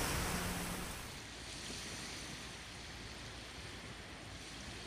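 Steady rush of strong wind and waves on open water, with no distinct events; it drops to a quieter hush about a second in.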